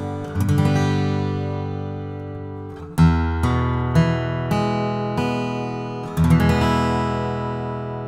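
Eastman E40D dreadnought acoustic guitar: a few chords strummed and left to ring, the loudest about three seconds in; the last, a little after six seconds, rings out and fades slowly.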